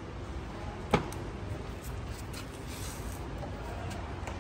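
A single sharp knock about a second in over a steady low background rumble, followed by a few faint, soft handling sounds.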